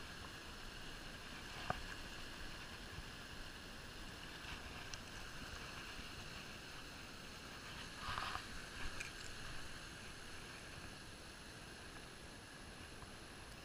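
Fast-flowing shallow stream running with a steady rush. A single sharp click comes about two seconds in, and a brief rustle about eight seconds in.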